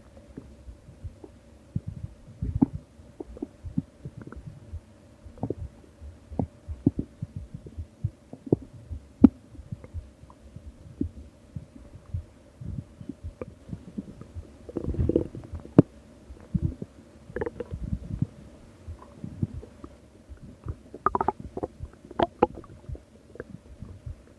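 Stomach growling: irregular gurgles and short rumbles of gas and fluid moving through the gut, with a denser, longer gurgling rumble about fifteen seconds in and a cluster of sharper gurgles near the end, over a faint steady hum.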